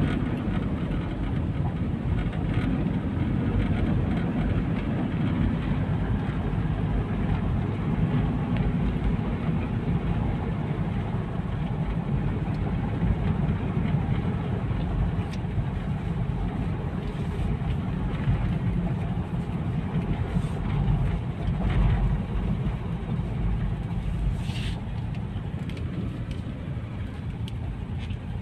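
Steady low rumble of a car driving along, heard from inside the cabin: engine and road noise.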